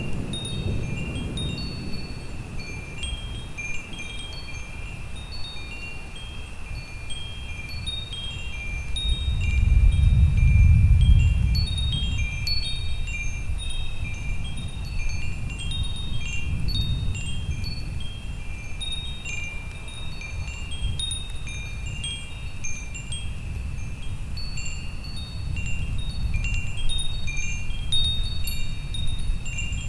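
Wind chimes ringing continuously, their struck tones overlapping, with low rolling thunder beneath that swells to its loudest about a third of the way in and rumbles up again a few times. No rain.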